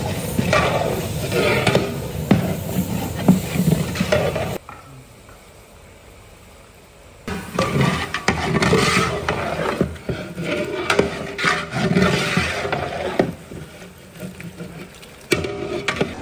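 A long flat metal ladle stirring and scraping chopped tomatoes and brinjal as they sizzle in oil in a large metal cooking pot. The sound drops away for a couple of seconds about four and a half seconds in, then resumes.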